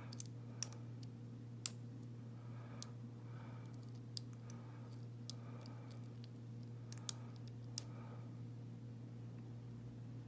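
Lock pick and tension wrench working the pins of an American 1105 padlock: sparse, irregular sharp metallic clicks as the serrated pins are lifted and set, over a steady low hum.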